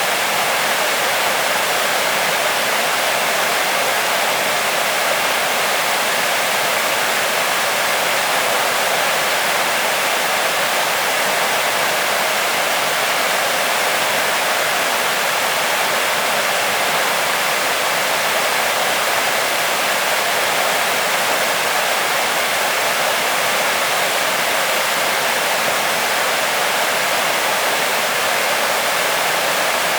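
Waterfall pouring steadily: an even, unbroken rushing of falling water.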